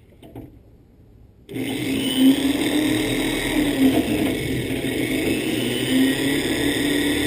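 A few light clicks, then about a second and a half in an electric drill starts and runs steadily with a constant whine, its oiled bit drilling into a C10 door regulator.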